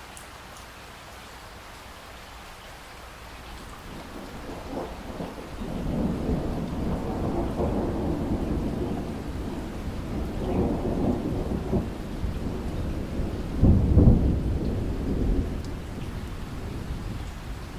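Steady rain with a long roll of thunder. The thunder builds about four seconds in, rumbles in several waves, reaches its loudest clap late on, and then dies away.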